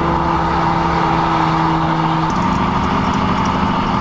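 Steady running noise inside a diesel passenger train, with an engine hum that shifts to a slightly different pitch a little over two seconds in, and faint light rattles after that.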